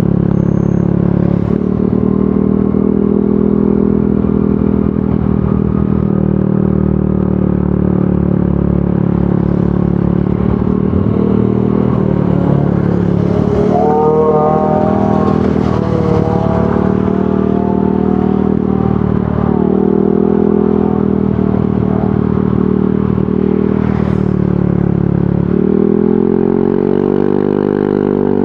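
Yamaha NMAX 155 scooter's single-cylinder engine running through an aftermarket VMAX Onyx muffler. The exhaust note rises and falls with the throttle, with a clear rev up and back down near the end.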